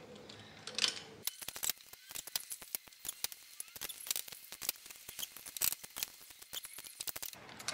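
Ratchet of a torque wrench clicking fast and repeatedly as a cylinder head bolt is tightened, starting about a second in and stopping just before the end. The head bolts are being torqued down in sequence to their first-stage setting.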